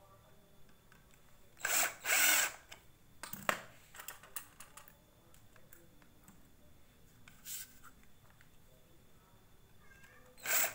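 Cordless drill spinning in short bursts as its bit works into the plastic flange of a PVC pipe housing: two bursts about two seconds in, a short one past halfway, and another near the end.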